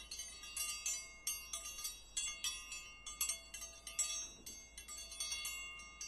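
Metal chimes ringing, struck irregularly several times a second, each strike a cluster of high, clear tones that ring on briefly.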